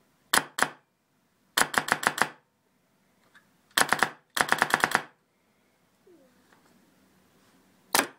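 PolarStar HPA-engine airsoft M4 firing through a carbon fiber suppressor packed with foam inserts: sharp cracks coming as a double shot, a rapid burst of about six, another double, a burst of about seven, and a single shot near the end.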